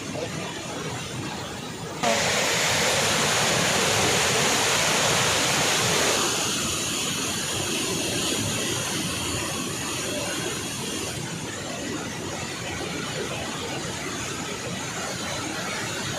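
Water rushing through the open spillway gates of a dam: a steady roar. It jumps sharply louder about two seconds in, stays loud for about four seconds, then settles back.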